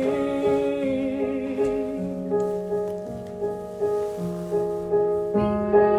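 Piano accompaniment in a live art-song performance. A singer holds a high note with vibrato for about the first two seconds, then the piano continues alone with evenly repeated notes.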